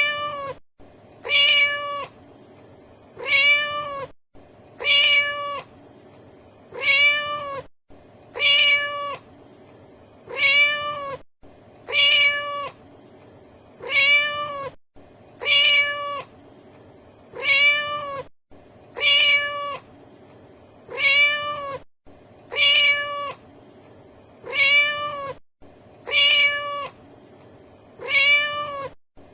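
Cat meowing: the same short, high meow repeated over and over, one about every 1.7 seconds, each call identical in shape, as in a looped cat sound effect.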